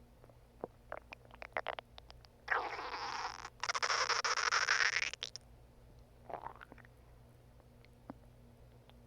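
Human stomach growling: scattered small gurgles and pops, then two loud bubbling rumbles from about two and a half seconds in, lasting some three seconds together, and a shorter gurgle a little after.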